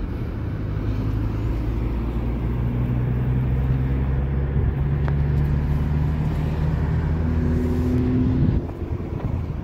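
Car running along a highway, heard from inside the cabin: a steady low engine and road hum. It drops off abruptly about a second before the end.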